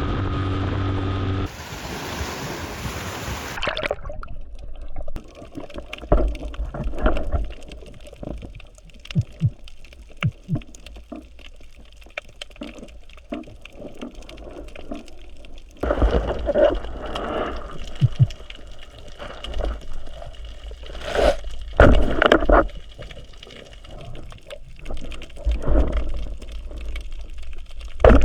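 Irregular gurgling and sloshing of water, with uneven swells and small knocks, after a short steady hum and a rushing hiss in the first few seconds.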